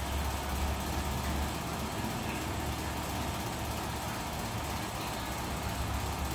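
Metal floor fan running: a steady low motor hum with an even rush of air.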